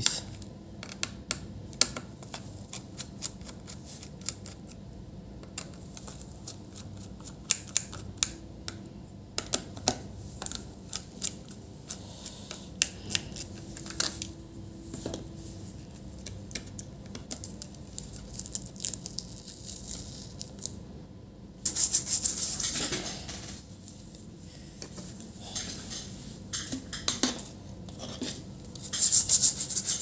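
Small screwdriver and loose metal parts clicking and tapping against a laptop motherboard as the heatsink screws are undone and the heatsink is lifted off. Twice, about 22 seconds in and again near the end, a stiff brush scrubs the circuit board in spells of scratchy rubbing.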